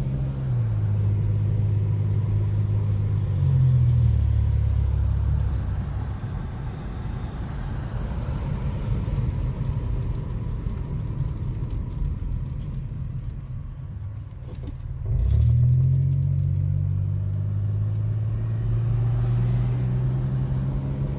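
Car engine running while driving, a low hum that steps down and up in pitch as the car changes speed, dropping quieter around three quarters of the way through and then climbing sharply as it speeds up again.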